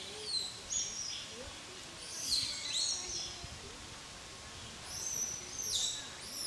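Baby monkey crying: thin, high-pitched squealing calls, many dropping in pitch, in bouts near the start, about two to three seconds in, and again around five to six seconds in.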